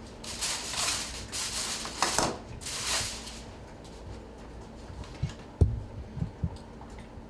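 Kitchen utensils on stainless steel pots: four scraping strokes in the first three seconds, then a few knocks of metal on metal, the loudest a little over halfway through.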